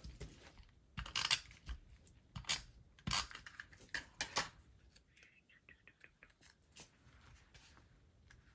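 Small hard craft supplies and paper being handled on a desk: a handful of sharp clicks and clacks in the first few seconds, then softer paper rustling.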